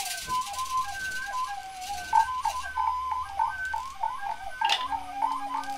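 Many short, overlapping chirping whistles, each falling in pitch, improvised by several players at once, with short noisy rattling bursts and a low steady note held near the end.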